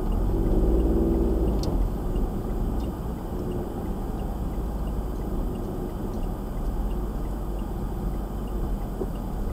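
Car engine and tyre noise heard from inside the cabin as the car pulls away from traffic lights. The engine note rises and is loudest in the first second or so, then settles into a steady drone while driving. A faint, even ticking runs underneath.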